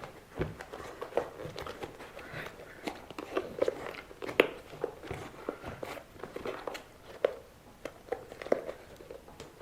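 Fingers squeezing and working a rubber RC car tyre and its foam insert by hand: irregular small rubs, squeaks and clicks of handling.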